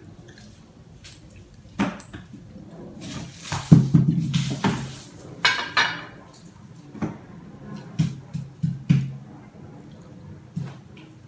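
Scattered clinks and knocks of dishes and utensils, from chopsticks on a rice bowl and plate and a child's toy pots and pans rummaged in a toy box. A louder clatter comes about four seconds in, then a brief rattle.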